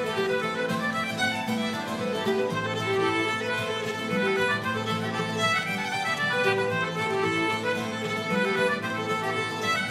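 Fiddle-led Irish traditional reel, played fast in a quick run of notes over a sustained lower accompaniment.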